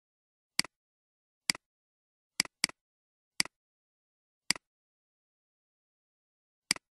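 Computer mouse clicking: seven sharp clicks at irregular intervals, each a press followed at once by a release, with two in quick succession about two and a half seconds in.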